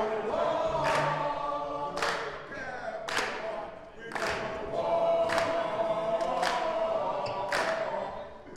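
A group of voices singing together and holding long notes, over a sharp beat about once a second.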